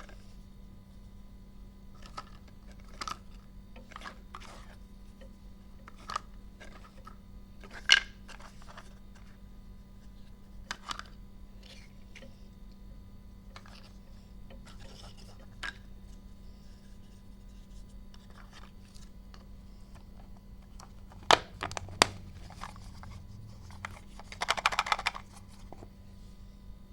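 Small plastic toy pieces and packaging being handled: scattered light clicks and taps, with a few sharper knocks and about a second of crinkling wrapper near the end. A faint steady hum runs underneath.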